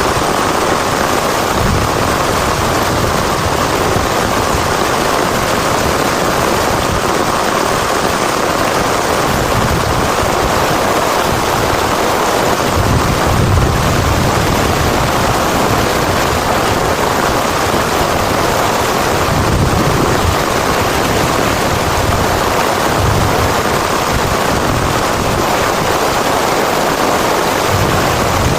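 Heavy rain falling steadily and densely, with low rumbles swelling and fading several times.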